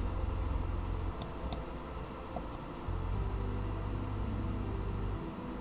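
Steady low hum with faint hiss, and two faint clicks about a second and a half in.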